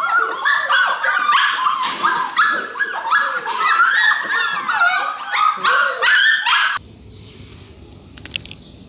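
A crowded pen of golden retriever puppies yapping, whining and yelping all at once, many overlapping high calls. The chorus stops abruptly about seven seconds in, leaving only a faint background.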